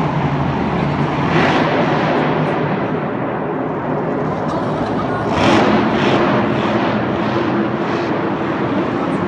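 Monster truck engine running loud as the truck drives across the dirt floor, with two brief surges of revving, one about a second and a half in and one about five and a half seconds in.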